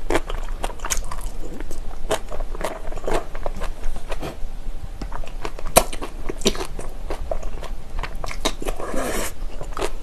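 Close-miked chewing of a big mouthful of spicy bibimbap and braised kimchi: irregular wet crunches, clicks and smacks. There is a short hiss near the end.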